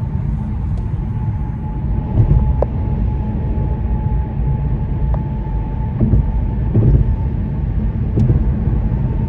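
Car driving along at speed, its road and engine noise a steady low rumble, with a faint steady whine and a few small knocks.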